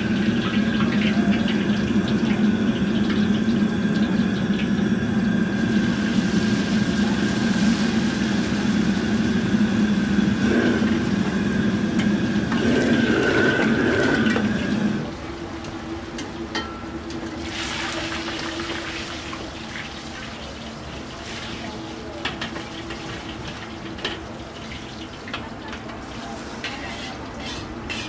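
Restaurant gas wok burner running on high with a loud steady hum while oil heats in the wok, dropping much quieter about halfway through. Then hot oil sizzling and splashing as the wok is tipped to drain the fried fish noodles, with a few metal clinks near the end.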